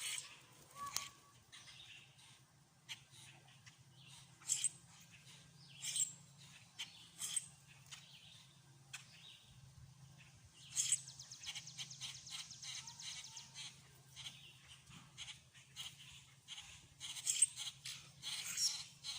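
Songbirds chirping and calling: many short, high notes scattered throughout, with a rapid trill starting about eleven seconds in and lasting about three seconds. A faint steady low hum lies underneath.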